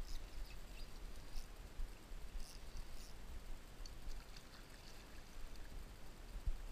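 Small waves lapping and trickling against a plastic kayak hull, with scattered light splashes and ticks over a low rumble.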